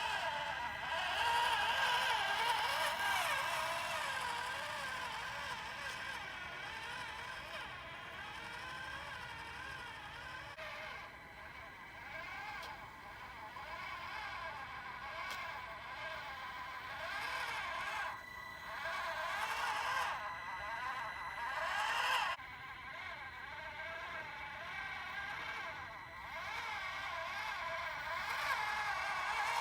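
Kyosho Mini-Z 4x4 micro RC crawler's small electric motor and gears whining, the pitch rising and falling as the throttle changes, with a couple of abrupt breaks.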